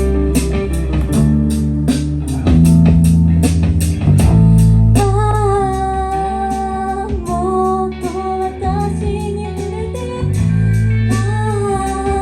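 Live band playing, with guitar and bass guitar over a steady beat. From about five seconds in, a long, held, wavering melody line sounds over the bass.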